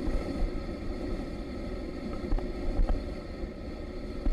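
Wind buffeting the microphone over the low rumble of a motorbike on the move, a steady uneven noise.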